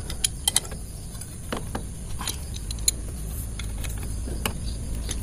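Irregular sharp metal clicks and clinks of a hand wrench working on the sprocket nuts of a Honda Supra X 125 as they are tightened, over a steady low rumble.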